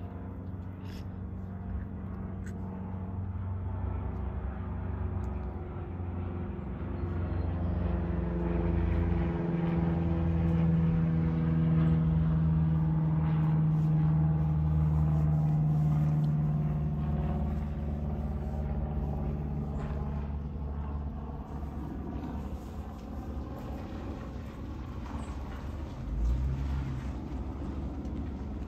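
Engine of a passing vehicle: a low hum of several steady pitches that swells to its loudest mid-way and then slowly fades away. A short low thump near the end.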